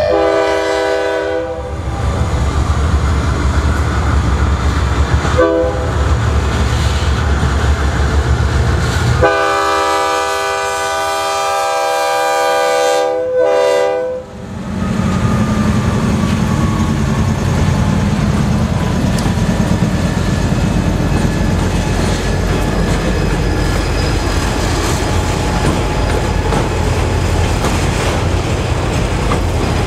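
Freight locomotive horn sounding for a grade crossing: the tail of a long blast, a short tap about five seconds in, then a long blast held for about five seconds until the lead GE C40-8 reaches the crossing, over the low rumble of the diesel engines. The GE C40-8 and EMD SD40-2 then pass with a deep engine rumble, and the autorack cars follow with steady wheel and rail noise.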